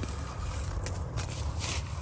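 Soft rustling and scraping in dry bamboo-leaf litter as a freshly chopped bamboo shoot is lifted from the ground, with a low rumble underneath.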